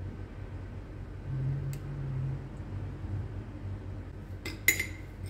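Metal spoon clinking against a small glass bowl: a faint click about a second and a half in, then a few sharp clinks near the end, over a low steady hum.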